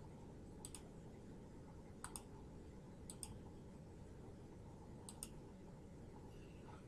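Faint computer mouse button clicks, coming as four quick double clicks spread a second or two apart, over a low steady hiss.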